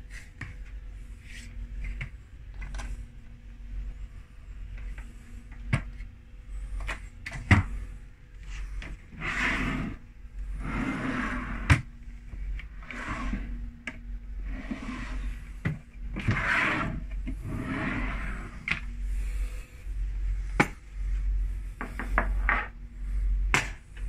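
Cabin drawers and cupboard doors being handled: a series of sharp clicks and knocks, and from about nine seconds in repeated sliding, rustling rushes, over a steady low hum.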